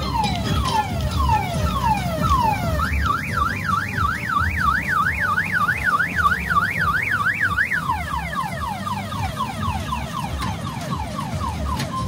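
Electronic siren sound effect from the kiddie car-train ride's sound system, cycling through car-alarm tones. It plays falling whoops about twice a second, then a fast up-and-down wail about three times a second from about three seconds in to about eight seconds, then quicker falling whoops. A low rumble runs underneath.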